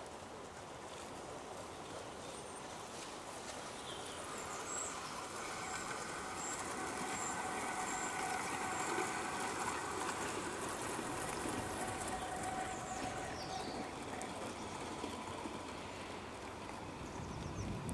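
O gauge model trains running on an outdoor track, a steady rolling rumble of wheels on rails that grows louder as two trains pass close, peaks about halfway, then eases off.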